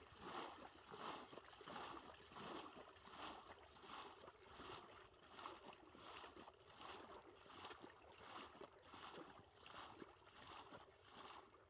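Faint, steady rhythm of water being bailed by hand with a steel plate, splashing about three scoops every two seconds.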